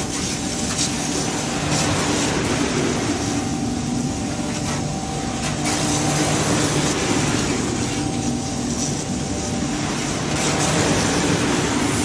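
Water jetting from a hand-held hose spray gun onto the steel hopper and drum fins of a concrete mixer truck, washing off concrete residue. The hiss eases off briefly a couple of times as the spray is moved, over a steady hum from the truck.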